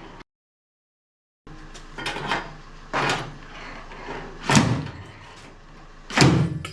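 GD90E spot-welding dent puller working a car's wheel-arch panel: five short, sharp bursts at uneven gaps of about half a second to a second and a half, the last two loudest. The sound cuts out completely for about a second near the start.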